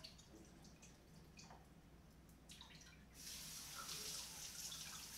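Kitchen sink tap turned on about three seconds in, then running steadily over drained cannellini beans to rinse them. A few faint handling clicks come before the water starts.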